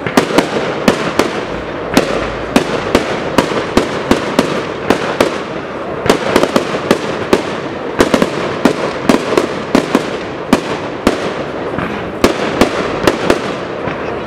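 Aerial firework shells bursting in a dense barrage, with sharp bangs often several a second over a continuous crackling noise.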